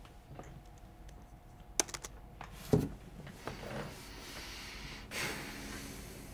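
Sparse clicks and taps on a laptop keyboard close to the microphone, with one sharper click a little under two seconds in and a duller thump just after. A softer, longer rustling noise fills the second half and swells about five seconds in.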